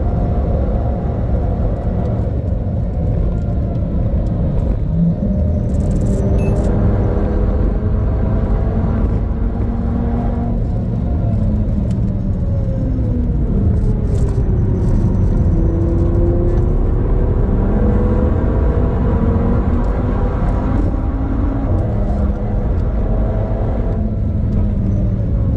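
A 2013 Audi TT RS's turbocharged five-cylinder engine pulling hard at high speed, heard from inside the cabin over heavy road and wind rumble. About ten seconds in, the engine note falls for several seconds as the car brakes and shifts down a gear, then climbs again under acceleration.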